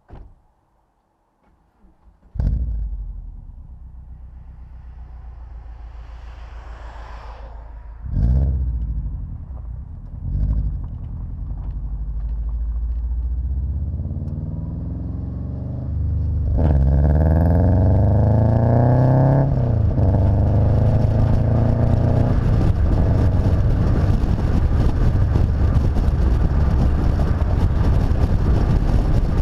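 A car engine starts about two seconds in and idles, is revved briefly twice, then the car pulls away and accelerates, the engine pitch climbing through a gear before a shift. Toward the end it cruises with steady engine, road and wind noise.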